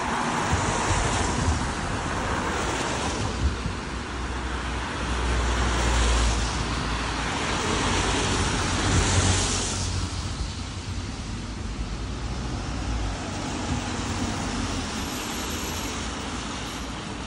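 Road traffic: cars passing one after another, their tyre hiss swelling and fading several times over a steady low rumble.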